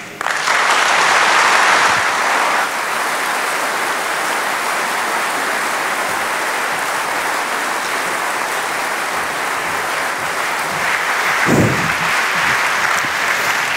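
A large audience applauding at the end of a lecture. The clapping is loudest in the first couple of seconds, then settles to a steady level and swells again near the end.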